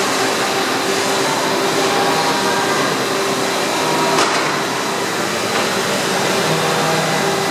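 CHIRON FZ 18 L vertical machining centre running: a steady mechanical hum with a high steady tone above it, and one sharp click about four seconds in.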